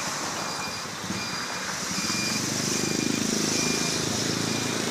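A motor vehicle's engine on the street, getting louder from about two seconds in as it comes closer. Faint short high tones repeat at even intervals over it.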